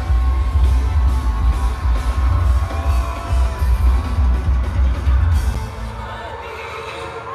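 Live concert music recorded on a phone in the crowd: a heavy, pulsing bass beat with singing over it and crowd noise. The bass cuts out about six seconds in and the music gets quieter.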